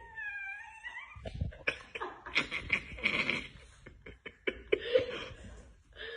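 Chihuahua making a whine that bends down and back up in pitch for about a second, followed by rough, noisy vocal sounds broken by several sharp clicks.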